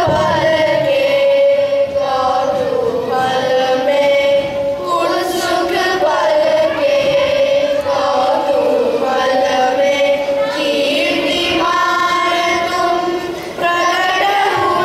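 A children's chorus of boys and girls singing a Hindi song through microphones, with long held notes.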